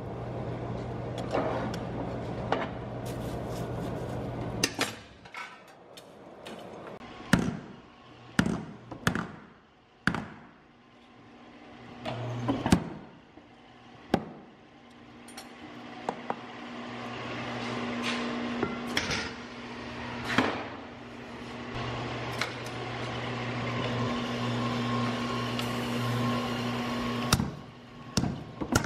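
Blacksmith's shop: single sharp hammer blows on steel at irregular intervals over a steady low machine hum, which cuts off abruptly twice.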